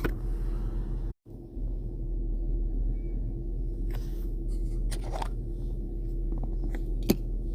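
Steady low hum that cuts out for a split second about a second in, with a few light clicks and rustles of objects being handled.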